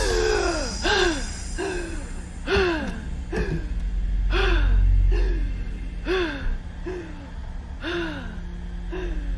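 A woman gasping for breath, a quick regular run of gasps about one and a half a second, each falling in pitch, over a steady low rumble.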